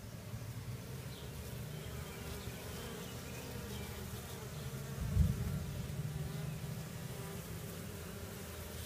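A mass of honeybees from a 3 lb package buzzing steadily, a low hum. A dull thump about five seconds in.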